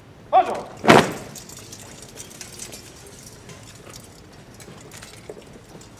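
A shouted parade-ground command, then a single sharp crash as a rank of ceremonial guards carries out a drill movement in unison, lowering their sabres. Scattered light metallic clinks follow.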